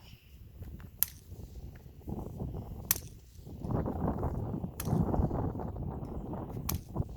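Bullwhip cracking four times at an even pace, about two seconds apart, each crack a sharp snap. Strong wind rumbles on the microphone and grows louder about halfway through.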